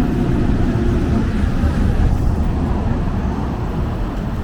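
Steady city street ambience dominated by low traffic rumble.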